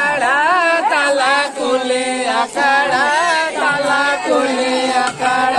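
Several men singing a village folk song together, the melody wavering and ornamented, with short breaks between phrases.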